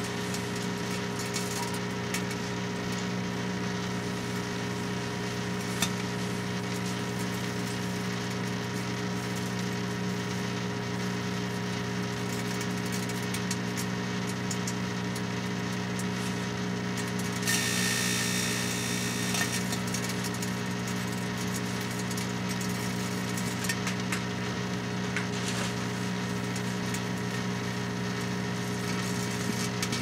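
Microwave oven running with a steady electrical hum while the metal Slinky inside arcs and sparks, giving a couple of sharp snaps and, a little past halfway, a louder hissing burst lasting about two seconds.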